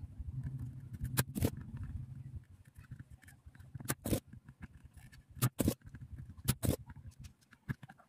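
Sharp knocks and clicks of tools being handled on a wooden workbench, coming in four close pairs, over a low hum that stops about two and a half seconds in.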